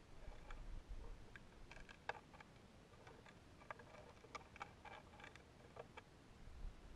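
Near silence with faint, irregular ticks and clicks, thickest in the middle, over a faint low rumble that comes and goes: a high-altitude balloon payload's camera mount and housing shifting as the payload swings on its flight string.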